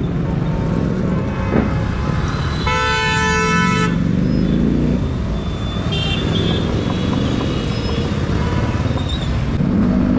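Motorcycles and scooters riding past in traffic with their engines running, and a vehicle horn blaring for about a second about three seconds in. A short, higher-pitched beep comes near six seconds.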